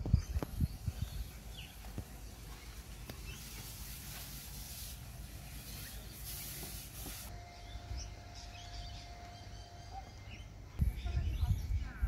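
Outdoor ambience with faint bird calls. Low buffets of wind or handling hit the phone microphone near the start and again just before the end.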